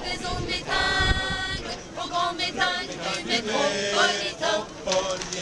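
A mixed choir of men's and women's voices singing a French song unaccompanied, in phrases with a long held note about a second in.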